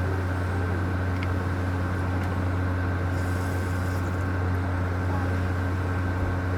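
Steady low machine hum, like a motor or fan running, with fainter steady higher tones over it.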